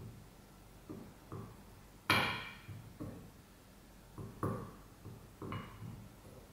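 Pestle knocking in a white porcelain mortar: a series of separate knocks about once a second. The loudest is a ringing clink about two seconds in.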